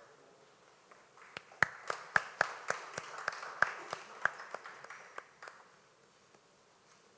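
A small audience clapping briefly: sparse, separate hand claps over a light patter that start about a second in and die away by about five and a half seconds.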